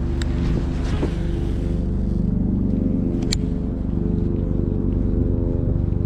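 A steady, low engine drone with an even stack of tones and no change in pitch. A single sharp click comes about three seconds in.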